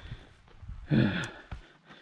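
A man's weary groaning sigh, about a second in, falling in pitch: the rider is worn out after riding motocross.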